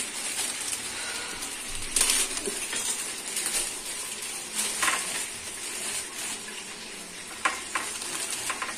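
Hot cooking oil sizzling steadily as food fries in it, with a few sharp clicks and clinks scattered through.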